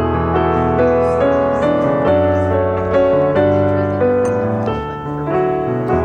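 Background music: piano playing a calm melody over sustained low chords.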